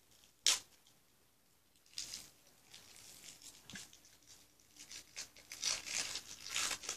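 Plastic wrapping being peeled and torn off a sandy dig-for-diamonds block: irregular crinkling and tearing. There is one sharp crackle about half a second in, and the crinkling grows louder near the end.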